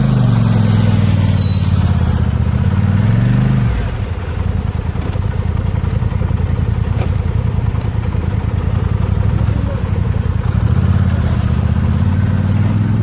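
ATV engine running under way. Its note dips and climbs over the first few seconds, settles into a lower, rougher rumble, then rises again near the end.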